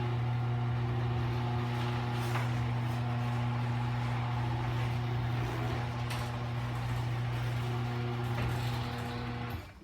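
Electric garage door opener running as it raises the door: a steady motor hum that stops suddenly near the end as the travel finishes.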